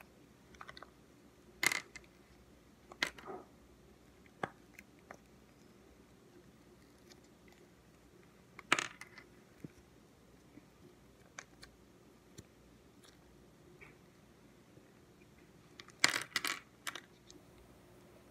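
Tiny ice cubes being pushed out of a frozen silicone pop-it mold, giving scattered sharp clicks and clinks as they pop free. The clicks come singly at first, then as a quick cluster of several near the end, which is the loudest.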